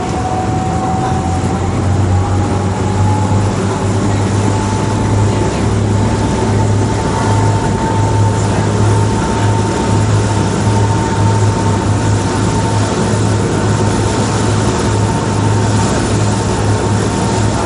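Tour boat's engine running under way, a steady low drone with wind and water noise over it. A whine rises in pitch over the first few seconds and then holds steady.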